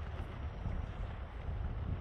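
Wind buffeting the microphone: a steady, uneven low rumble with a softer hiss above it.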